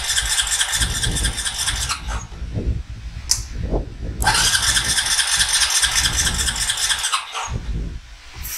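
Honda Rancher 350 ATV's single-cylinder engine being cranked on the electric starter in two bursts of about three seconds each, with a steady rhythmic pulse, without catching and running in between.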